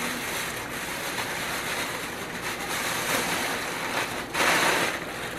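Thin plastic grocery bag rustling and crinkling as it is twisted and knotted shut, with a louder rustle about four and a half seconds in.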